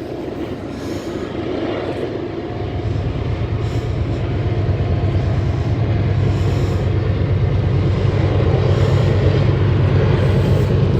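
A train's diesel locomotives running, a steady low drone that grows louder over the first few seconds and then holds.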